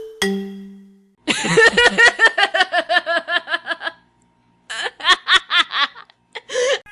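Meme sound effects: the last note of a short chiming, ringtone-like tune, then a burst of rapid, high-pitched laughter in quick repeated syllables, a short pause, and a second, shorter burst of laughter.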